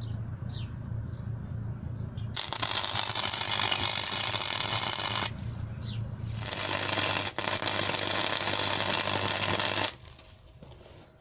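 Mightymig 100 flux-core MIG welder arc crackling in two runs of about three seconds each, with a second-long pause between them, and cutting off sharply near the end. A low steady hum runs underneath.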